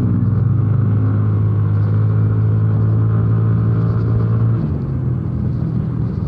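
Yamaha motor scooter engine running steadily under way, with wind and road rush. About four and a half seconds in, the engine note changes and gets quieter, as when the throttle eases off.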